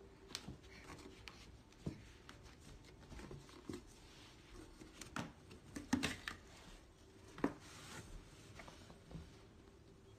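Faint handling noise: scattered light knocks and rubbing, as a toddler handles a cardboard box. The two loudest knocks come about six and seven and a half seconds in.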